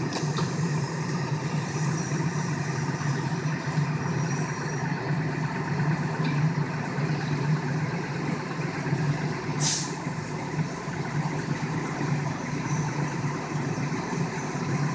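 Fire engine's engine running steadily, a constant low hum, with a short hiss about ten seconds in.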